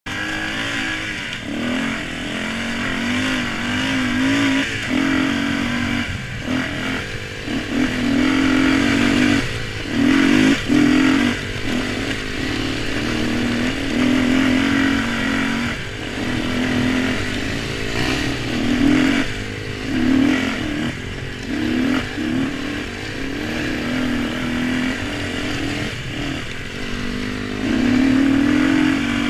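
Dirt bike engine running at trail speed, revving up and backing off every second or two as the throttle is opened and closed.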